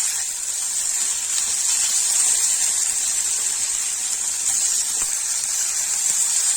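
Grated raw turmeric and ginger sizzling in ghee in a pan: a steady high frying hiss.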